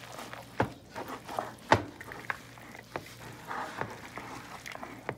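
Red silicone spatula stirring shredded cabbage, carrot and grated cheese in a bowl: soft scraping with irregular knocks against the bowl, the sharpest about half a second and just under two seconds in.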